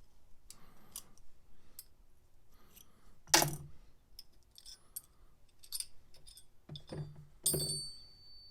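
Small metal tool parts being handled on a workbench: light clicks, a sharp knock a few seconds in, then two more clinks near the end, the last leaving a high metallic ring.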